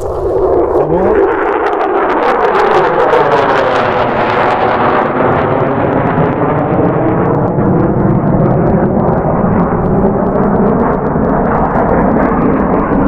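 Low-flying military jet passing over, a loud roar that comes in sharply and holds, its tone sweeping as the aircraft goes by.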